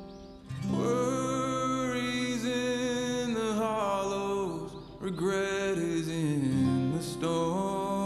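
Background music: a slow song with acoustic guitar backing and a held, gliding melody line.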